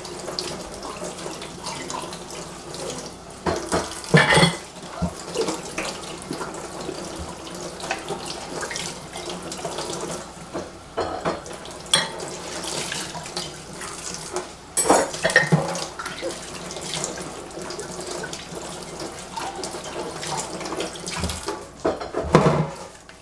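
Kitchen tap running steadily into a stainless steel sink while something is washed, with a few knocks and clatters in the sink now and then.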